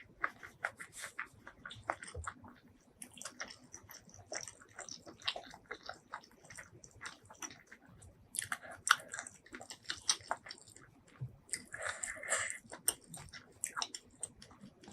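Close-miked chewing and biting of food: a quick, irregular run of wet clicks and smacks, busiest about halfway through and again near the end.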